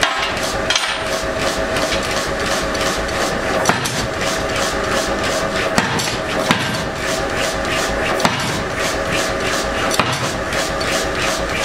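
Power hammer striking red-hot steel on a steel die in rapid, even blows, about four a second, over a steady machine hum. A few blows ring out louder than the rest.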